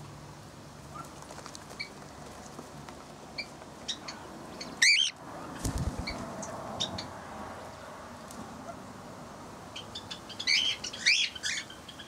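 Aviary birds calling: scattered short high chirps, one loud wavering call about five seconds in, and a quick burst of chirping near the end. A few low thumps come just before six seconds.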